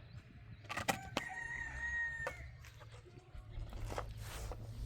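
A rooster crowing once: a single held call of about a second. It comes just after a couple of sharp knocks.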